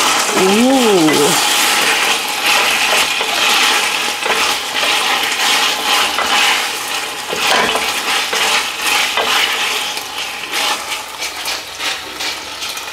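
Pork tocino frying in oil in a stainless steel pot, sizzling steadily, while a wooden spatula stirs and scrapes the pieces around the pan with frequent clicks and scrapes.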